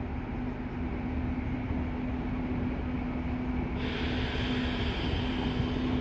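An IC4 diesel trainset running slowly into the station with a steady low hum and rumble. About four seconds in, a higher squeal from the wheels joins.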